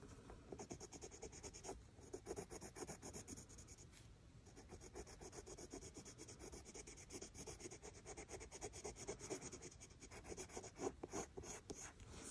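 Prismacolor coloured pencil scratching on cartridge paper in quick, short back-and-forth strokes as colour is layered on, faint throughout.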